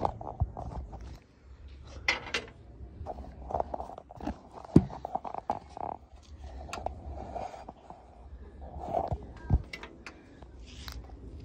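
Chunks of ice crackling and clicking as they are handled and set on hard surfaces: irregular sharp clicks and cracks, with a few louder snaps.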